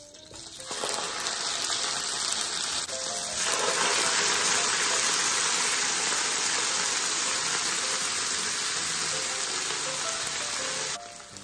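Sauced chicken and vegetables sizzling loudly as they hit a hot BRUNO electric hot plate and are stirred. The sizzle sets in under a second in, grows louder about three seconds later and drops away near the end.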